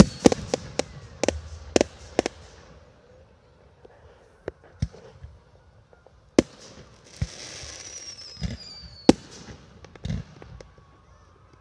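Aerial fireworks display: a rapid volley of sharp bangs in the first two seconds, then scattered single bangs. About seven seconds in comes a hissing whistle that falls in pitch, followed by a few more bangs.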